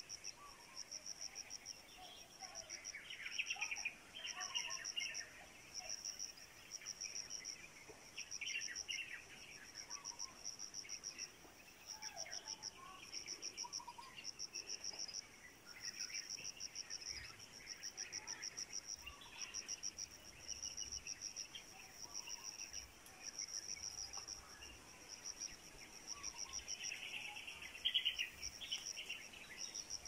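An insect trills high and fast in repeated bursts of about a second each. Under it, birds feeding in a fruiting tree chirp and call now and then, loudest about four seconds in and again near the end.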